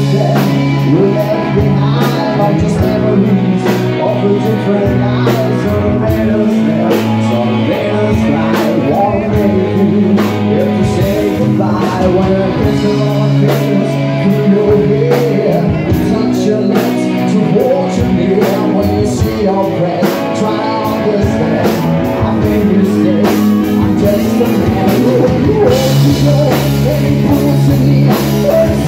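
Live rock band playing a power ballad: a male lead singer through a handheld microphone over electric guitar, bass guitar, keyboard and drums.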